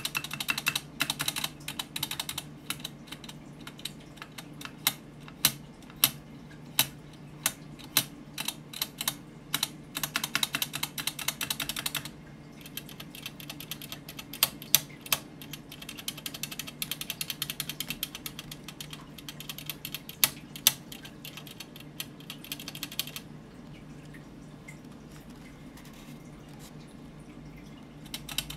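Spacebar and Shift keycaps on a Monstargear XO v2's stock, unlubricated stabilizers pressed by hand, clacking. It starts with fast tapping, then single louder presses about a second apart, another fast run, and a long stretch of softer quick ticks. It goes quieter near the end before fast tapping starts again.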